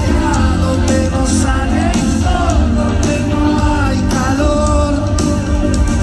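Mexican rock band playing live over a concert PA, heard from within the crowd: loud, steady rock music with heavy bass and a singer's voice over it.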